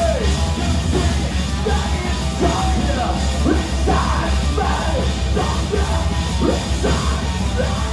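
Live heavy metal band playing loud, with a shouted, yelled vocal over the full band.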